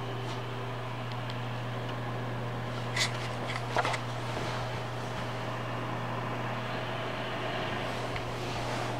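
Cooling fans of a running Zalman Z9 Plus desktop PC with a steady low hum and whir. Two brief knocks come about three and four seconds in.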